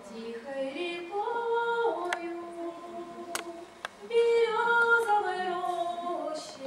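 Women's voices of a Russian folk choir singing a slow melody in long held notes that step up and down. Two phrases, with a short breath just before the middle; the second phrase is louder.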